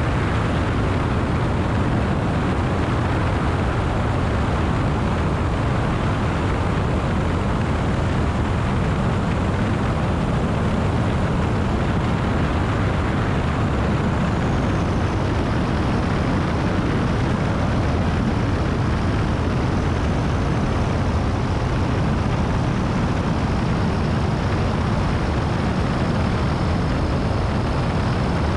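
Steady rush of wind and engine noise from a Flight Design CTLS light sport aircraft in level flight, its Rotax 912 flat-four engine and propeller under the wind buffeting a camera mounted outside on the wing. A faint high whine comes in about halfway through.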